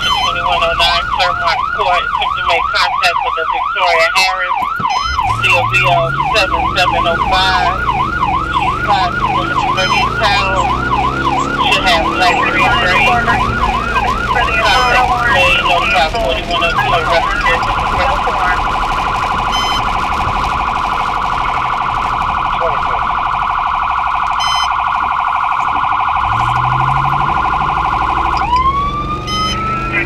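Emergency vehicle's electronic siren sounding on a response run. A fast yelp runs through the first half, then it switches to a steady, rapidly pulsing tone, and near the end it goes into a slow rising wail. Underneath, the vehicle's engine rises in pitch twice as it accelerates.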